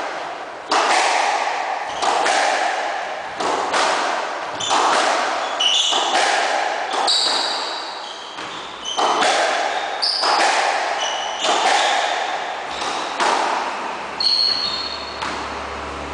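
A squash rally: the rubber ball struck hard by rackets and smacking into the court walls, a rapid series of sharp hits about one a second, each echoing in the enclosed court, with short high sneaker squeaks on the wooden floor. The hits stop near the end as the rally finishes.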